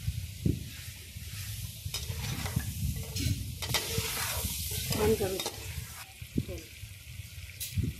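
Goat meat frying and sizzling in a kadhai while a perforated metal ladle stirs it, scraping against the pan; the ladle strokes come thickest in the middle, about two to five seconds in.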